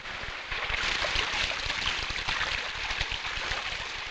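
Dense rustling and scraping of dry plant fibre being worked by hand, with many small rapid knocks. It starts about half a second in and continues steadily.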